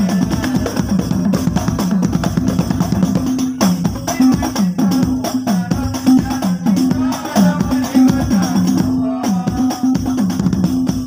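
Hadrah percussion ensemble: hand-struck rebana frame drums and a large barrel bass drum beaten with a felt mallet, playing a steady repeating rhythm.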